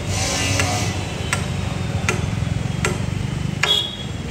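Welding yard: steady low hum with a sharp tick about every three-quarters of a second, a brief crackling hiss near the start and a short high whine near the end.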